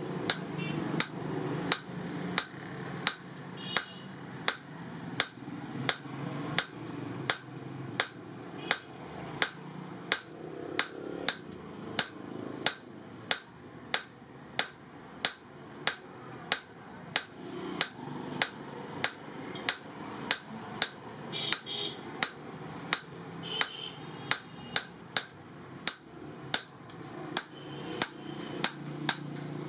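Hand hammer striking hot leaf-spring steel on an anvil in a steady rhythm of about two blows a second, each with a short metallic ring.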